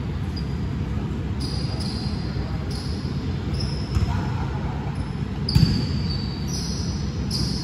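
Basketball bouncing on a gym floor, loudest in two thumps about four and five and a half seconds in, with short high sneaker squeaks and players' voices in the background.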